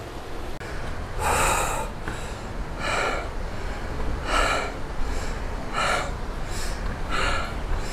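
Heavy, laboured breathing of a hiker climbing steep trail steps: a hard breath about every second and a half, five in all, over a low steady rumble.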